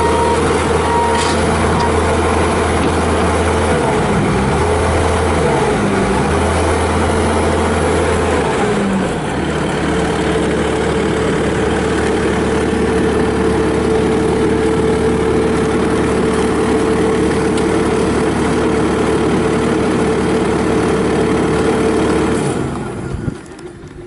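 Bobcat T650 track skid steer's Kubota V3307 turbo diesel running as the loader drives and turns. The engine note dips and shifts for a few seconds, then holds steady, and the engine is shut off about a second before the end.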